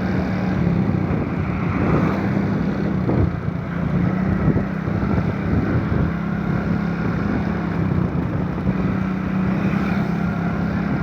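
Engine of a moving road vehicle running at a steady speed, an even droning hum, with wind rushing over the microphone.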